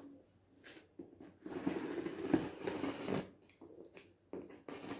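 A knife blade drawn along the taped top seam of a cardboard box, slitting the packing tape: a scraping rasp for about a second and a half starting about a second and a half in, with a few light clicks and taps on the cardboard before and after.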